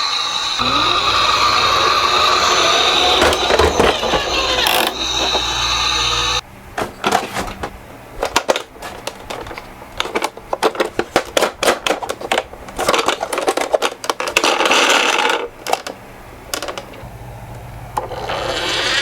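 Miniature toy ambulances and buses rolling down a slope: a steady rolling sound for about six seconds, then a quick, uneven run of clicks and knocks as the little cars clatter against the track and each other.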